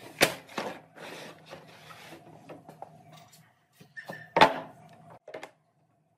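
Wooden boards set down on a wooden workbench with a sharp knock, a second knock and some rubbing as they are handled. About four seconds in comes a louder clunk as steel pipe clamps are laid on the bench.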